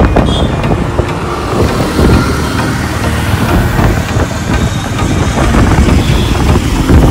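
Steady road noise from a vehicle moving through city traffic, with engine sound mixed into it.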